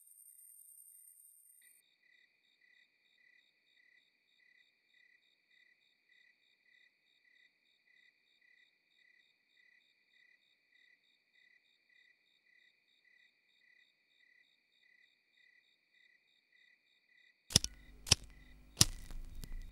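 Faint field crickets chirping steadily, about two chirps a second, after a high steady buzz cuts off near the start. Near the end come three or four sharp, loud strikes as a cigarette is lit with a match or lighter.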